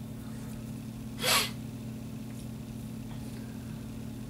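A single short, breathy burst of air from a person about a second in, over a steady low hum.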